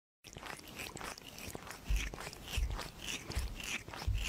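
A kitten chewing and smacking as it eats soft food from a bowl: a quick run of small wet clicks, with a few low thumps around the middle and near the end.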